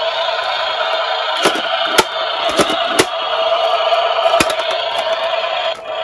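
A toy garbage truck's built-in sound unit playing its electronic tune through a small speaker, with several sharp clicks as the plastic toy is handled and its cab-roof buttons are pressed. The tune stops shortly before the end.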